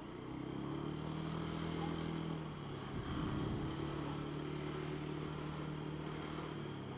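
Honda Dio scooter engine running under throttle as the scooter moves through traffic, a steady hum that holds nearly the same pitch, dipping briefly about two and a half seconds in before picking up again.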